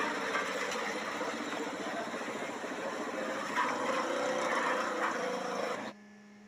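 Steady street background noise with traffic running past. It cuts off suddenly near the end.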